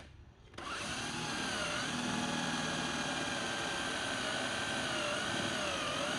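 A 12-volt cordless drill boring into a wood board. Its motor starts about half a second in and then runs with a steady whine that dips slightly in pitch a few times as the bit loads up in the wood.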